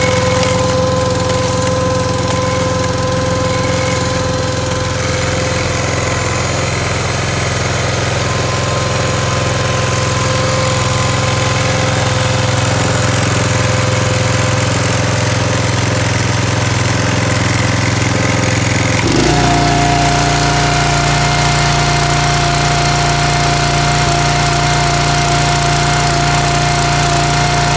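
Small petrol engine running steadily, driving the hydraulic power pack of a fiber optic cable blowing machine, with steady tones over a low rumble. About two-thirds of the way through the sound changes abruptly and a new, higher steady tone sets in.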